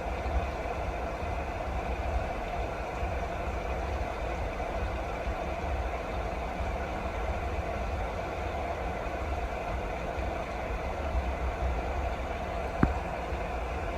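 Steady rain, an even rushing noise over a deep low rumble, with a single sharp tap near the end.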